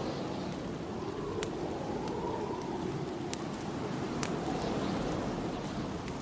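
Snowstorm wind howling steadily, its pitch slowly rising and falling, with a wood fire crackling, giving a few sharp pops.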